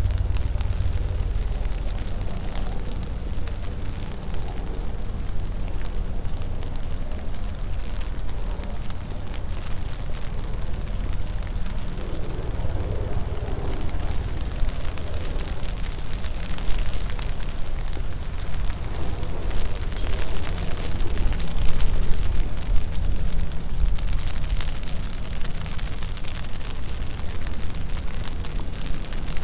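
Rain-soaked city street: a steady low rumble and hiss of wet traffic, with tyres swishing past on the wet road, swelling twice as vehicles go by, about halfway through and again about two-thirds of the way in.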